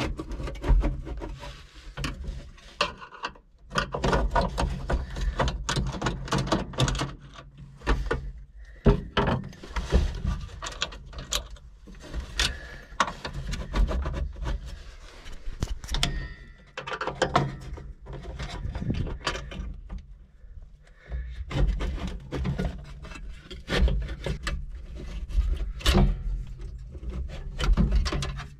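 Screwdriver and hands working at a metal car radio and its mounting under the dashboard while the radio is taken out: irregular clicks, taps, scrapes and clunks of metal on metal, with low rumbling handling noise throughout.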